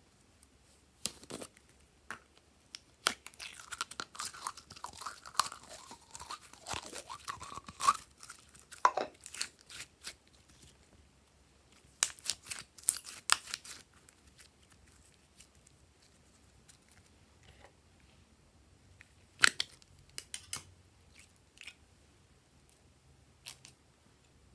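Slime being squeezed by hand out of a plastic slime tub: sticky crackling and popping in clusters with quiet gaps, and a single sharp click about three-quarters of the way through.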